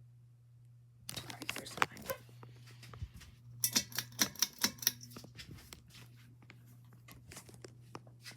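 Steady low hum of a 1986 Lih-Tzer Panama-vent ceiling fan's motor. Over it, from about a second in, come close rustling and scattered clicks, with a quick even run of clicks, about six a second, in the middle.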